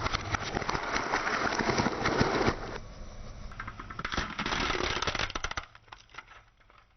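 Car tyres rolling over glass marbles, a dense run of sharp cracks and crunches in two bursts, the second starting about four seconds in, then tailing off to a few scattered clicks.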